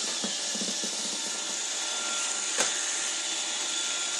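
Robot vacuum cleaner running: a steady hiss of its motor and brushes with a faint steady whine, and one sharp click about two and a half seconds in.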